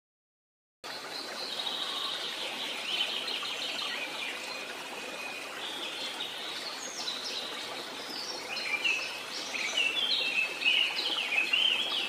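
Birds chirping and trilling in many short calls over the steady rush of flowing water. The calls grow busier and louder near the end. The whole sound starts suddenly about a second in.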